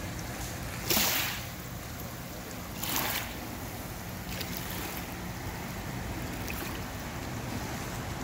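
Wind blowing across the microphone at the water's edge: a steady rush with low buffeting, and two short, louder gusts about one and three seconds in.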